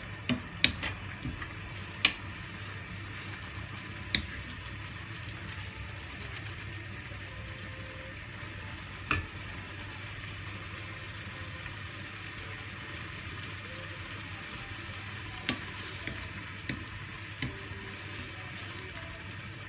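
Wok of glass noodles cooking in broth on a gas burner, with a steady sizzle. A wooden spatula stirs and knocks against the metal pan in a few sharp taps, several near the start, single ones at about 4 and 9 seconds, and a few more near the end.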